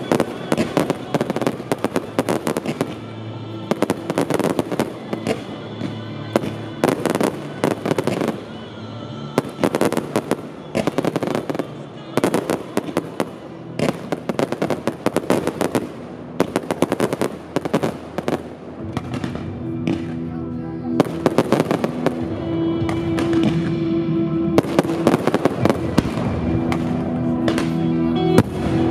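Fireworks display: aerial shells bursting in rapid volleys with crackling stars, over a music soundtrack. The bangs ease off a little past the middle, and a held note in the music comes forward in the second half.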